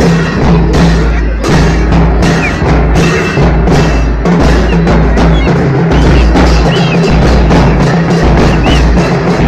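Several large bass drums beaten with padded mallets, keeping up a loud, steady processional beat.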